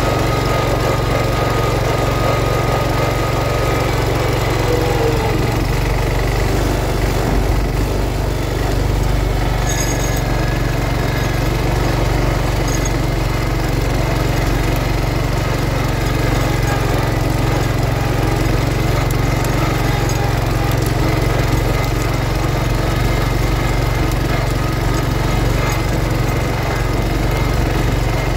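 1971 John Deere 140 H3 garden tractor's single-cylinder Kohler engine running steadily while the tractor pulls a Brinly sleeve-hitch moldboard plow through sod.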